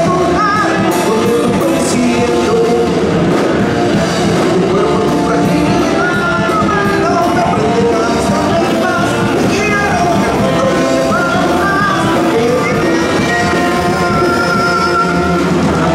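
Live rock band playing loudly through a large PA: a male lead singer sings into a handheld microphone over drums and keyboard.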